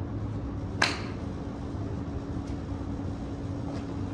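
An iron clubface striking a golf ball off a driving-range mat: one sharp click about a second in, followed by two much fainter clicks, over a steady low hum.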